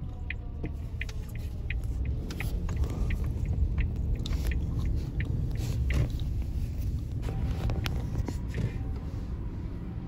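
Low road rumble inside a moving car's cabin, with scattered clicks and rustle from the phone being handled. A police car's falling siren dies away in the first second, and an ambulance's two-tone hi-lo siren comes in faintly about seven seconds in.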